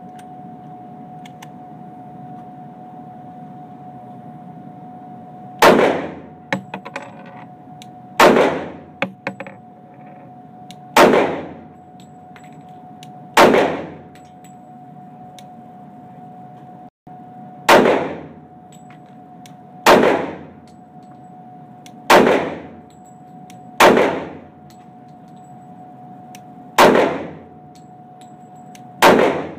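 Ten shots from a .45 ACP pistol, slow aimed fire about two to three seconds apart, starting about six seconds in; each shot rings on briefly in the indoor range.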